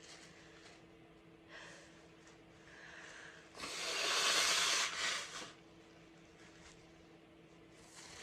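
A woman sneezes: a couple of catching inhales, then one long, forceful sneeze about three and a half seconds in.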